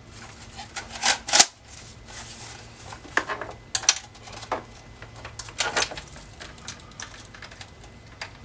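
Car radio head unit and its wiring harness being handled and pulled out of the dash slot: irregular clicks, knocks and rattles of the metal chassis, plastic plugs and wires, the loudest a pair about a second in.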